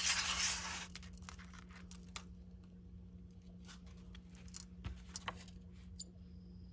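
Stiff 100-pound monofilament fishing line being handled and cut: a rasping rustle for about the first second, then scattered faint clicks and ticks. A steady low hum runs underneath.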